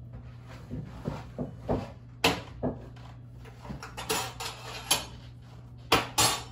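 Irregular sharp knocks and clatter of cookware being handled as a small stainless saucepan is set on the stove, over a steady low hum.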